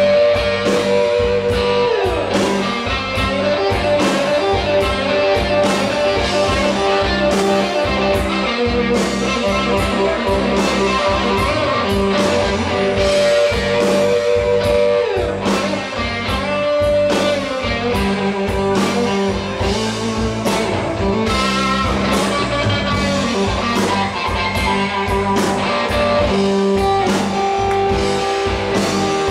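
Live blues-rock band playing an instrumental stretch: an electric guitar plays held notes that bend in pitch, over bass guitar and a drum kit keeping a steady beat.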